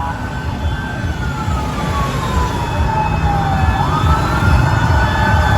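Fire truck siren wailing: its pitch falls slowly, then sweeps back up about two-thirds of the way through, over a low rumble, growing louder.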